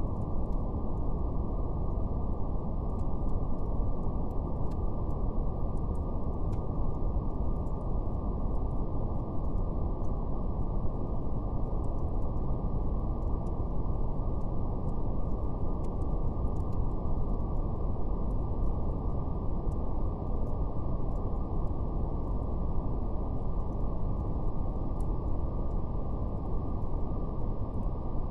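Steady brown noise, a deep even rumbling hiss with nothing above the low and middle range, over a faint crackle of fire: scattered small pops and snaps.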